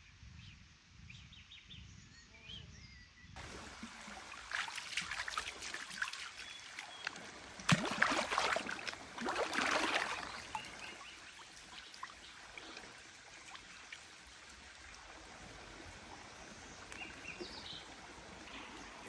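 A bee buzzing faintly among clover at first. Then a shallow stream running, with loud splashing for several seconds as a fish is grabbed by hand and thrashes in the water. The splashing is loudest about eight and ten seconds in, then the stream runs on steadily.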